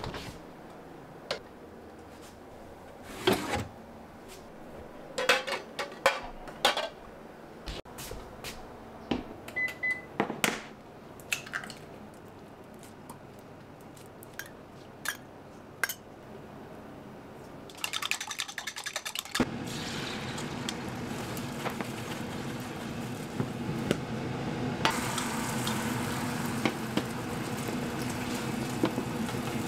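Kitchen work sounds: scattered clicks and knocks and a short beep, then a couple of seconds of rapid clattering. After that a steady hiss and hum set in and grow louder near the end as beaten egg cooks in a rectangular tamagoyaki pan on the hob.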